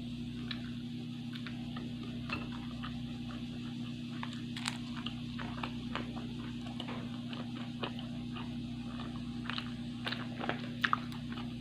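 Close-up mouth sounds of a person chewing food: scattered soft clicks and smacks, over a steady low hum.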